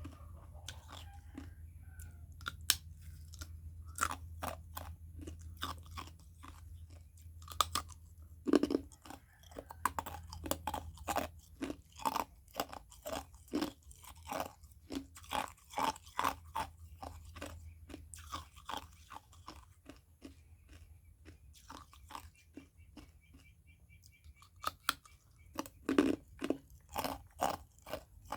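A person biting and chewing ice, with sharp, irregular crunches coming in quick runs, sparse in the first few seconds and again for a few seconds before the end, dense in between and at the end. A low steady hum runs under the first two-thirds.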